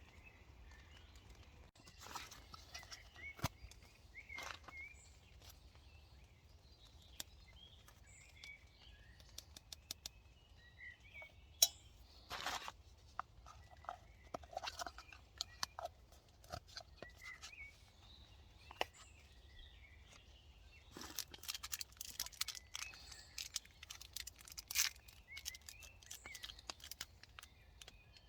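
Faint woodland birds chirping, with scattered short ticks and taps and a denser run of taps about three quarters of the way through.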